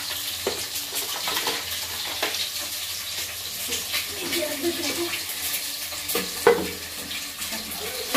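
Food frying in a pan on a gas stove: a steady sizzle with many small utensil clicks, and one sharper knock about six and a half seconds in.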